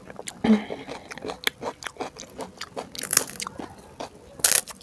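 Close-miked chewing of pani puri: crisp fried puri shells crunching and crackling between the teeth in quick sharp crackles, with louder crunches about three seconds in and again near the end.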